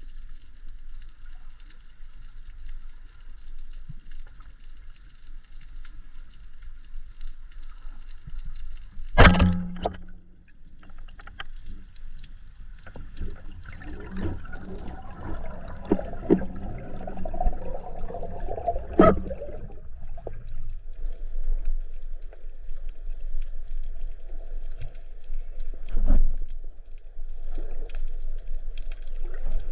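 Speargun firing underwater with a sharp crack about nine seconds in, the loudest sound here, followed by several seconds of scraping and clatter. Two more sharp knocks come later, over a faint steady underwater hiss.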